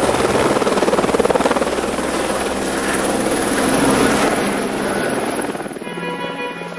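Helicopter lifting off and climbing away, its rotor chop and engine noise loud at first and fading over the last couple of seconds. Near the end a steady pitched tone with several notes comes in.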